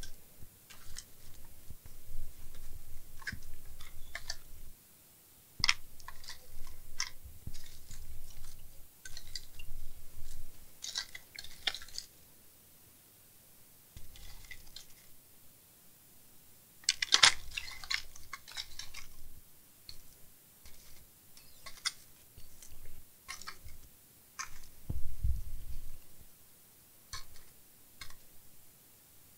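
Small parts packaging and storage being rummaged through: irregular sharp clicks and short crinkling rustles in bursts with pauses, and a dull low thump near the end.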